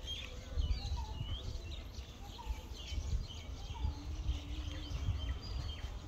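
Several small birds chirping in quick short notes, over a low, uneven rumbling noise.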